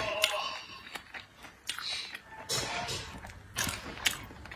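Close-miked chewing of cooked octopus: wet mouth smacks and sharp clicks at irregular intervals.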